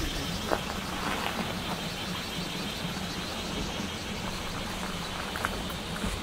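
Steady outdoor ambience: an even hiss with a low hum underneath and a couple of faint clicks.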